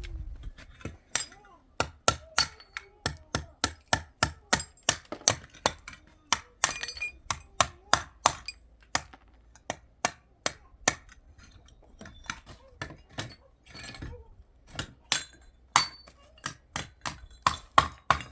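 Kitchen clatter: a long run of sharp knocks and clinks, about two a second with brief pauses, some with a short metallic or glassy ring.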